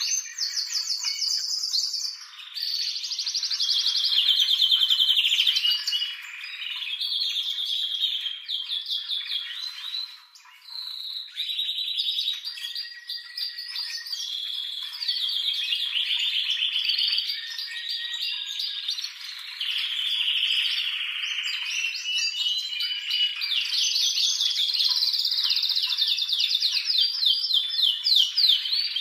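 Male domestic canary singing an excited breeding-season song: a long, continuous run of rapid trills, each phrase a fast repeat of one high note, shifting pitch every second or two. There is a brief pause about ten seconds in.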